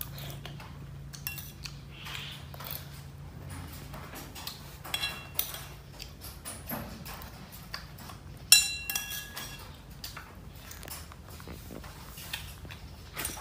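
Metal spoon clinking and scraping against a ceramic bowl while eating, in scattered light taps with a few ringing clinks, the loudest a little past halfway.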